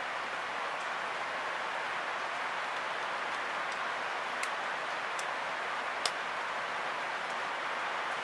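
Steady hiss of rain, with a few sharp clicks from handling the Canon 60D camera body; the loudest click comes about six seconds in.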